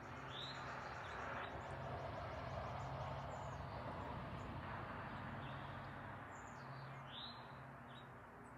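Birds chirping: short, arcing chirps come every second or so, over a steady background hiss and a low hum.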